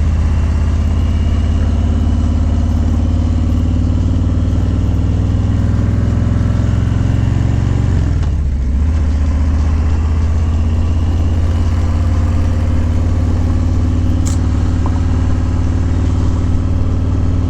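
Harley-Davidson Low Rider S's Milwaukee-Eight 114 V-twin running under way, a steady low engine note; about eight seconds in the note drops briefly and then climbs back up.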